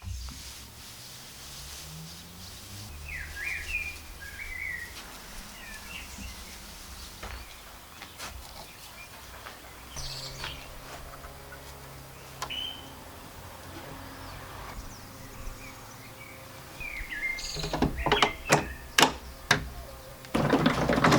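Small birds chirping now and then over a low steady background hum. Towards the end a series of sharp knocks starts, followed by a loud burst of rustling and knocking.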